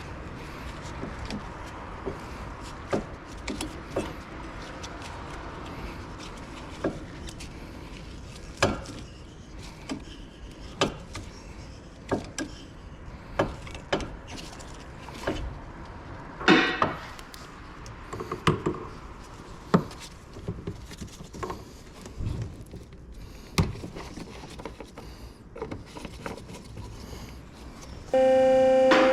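Irregular metallic clicks, clinks and knocks of hand tools and car parts being handled during brake work. Steady synthesizer-like music comes in near the end.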